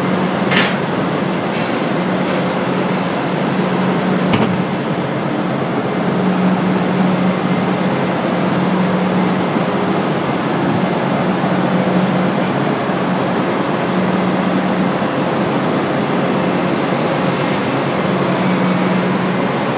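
Steady loud drone of heavy industrial machinery, with a low hum that comes and goes and a sharp knock about four seconds in.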